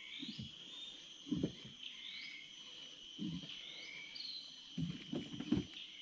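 Outdoor wildlife ambience: a bird repeating short chirping notes every second or two over a steady insect drone, with a few brief low thuds.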